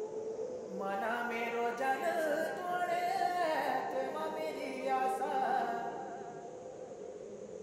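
Music: a singing voice carries a wavering melody over a steady held note, fading away in the last couple of seconds.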